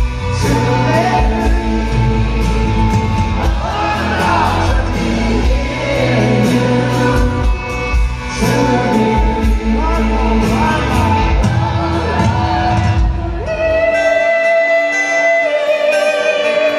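Live arena concert music: a male lead vocalist singing a slow song over a full band with violins and backing singers, with the echo of a large hall. About thirteen seconds in the bass and drums drop out, leaving voices and high sustained lines.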